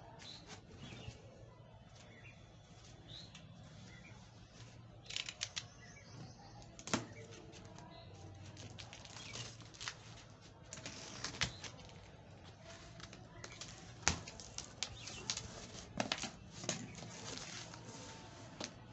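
Corrugated cardboard shipping carton being opened by hand: packing tape pulled away and the flaps folded back, in scattered bursts of crackling and rustling with a few sharp knocks.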